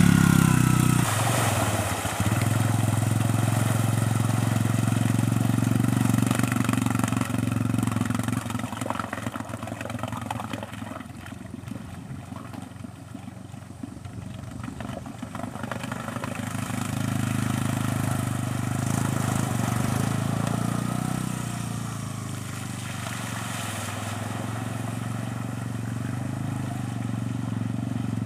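Suzuki LT-Z250 ATV's single-cylinder four-stroke engine running at low throttle, close to idle, while the quad is driven through seat-deep water. It fades for a few seconds in the middle and then grows louder again.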